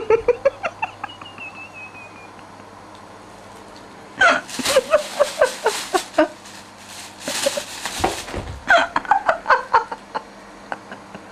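High-pitched human laughter in bouts of short repeated syllables, starting again about four seconds in and once more near the end, over the crinkling of a plastic bag that a cat is playing in.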